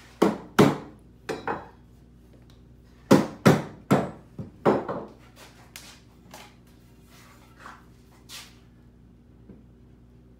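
Sharp knocks of wood and iron on a wooden workbench as a holdfast is struck loose and pieces are handled: two hard knocks at the start, two more soon after, a quick run of four or five about three seconds in, then a few light taps.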